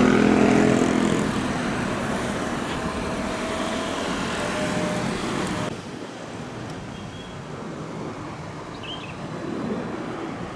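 Jet engine noise from an airliner climbing out after takeoff, a steady drone that slowly fades. About six seconds in it drops abruptly to a quieter, more distant jet noise from the runway, with a few faint high chirps.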